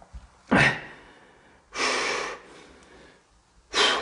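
A person breathing hard: three loud breaths about a second and a half apart, the middle one the longest.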